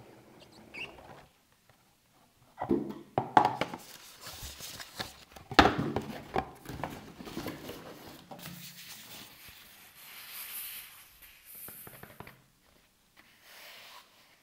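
Hands handling cardboard watch packaging: a few sharp knocks and thumps about three and five seconds in as the box is opened, then rustling of a translucent plastic wrap as it is drawn off the inner box.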